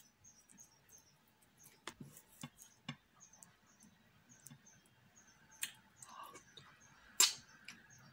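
Eating fufu by hand with okro and ogbono soup: soft wet clicks and squelches as the fufu is torn and scooped through the slimy soup, then a sharp wet mouth smack about seven seconds in as the morsel goes into the mouth. Faint high chirps repeat throughout.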